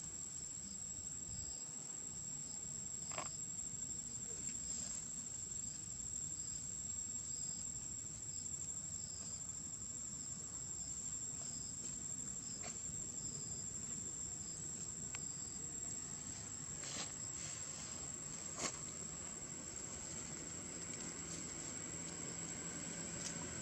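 Insects trilling in one steady high-pitched note, with a second, pulsing insect call a little lower. A few faint clicks come a few seconds in and again near the end.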